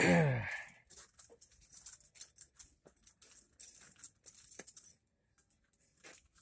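A brief loud sound dropping in pitch, then scattered light clicks and rattles of small objects being handled.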